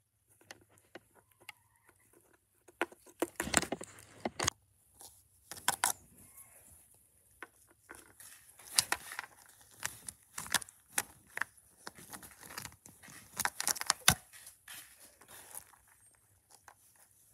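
Small plastic animal figurines being handled, tapped and scraped on a brick ledge: irregular clicks and scratchy rustling, with the loudest flurries of handling about three to four seconds in and again near fourteen seconds.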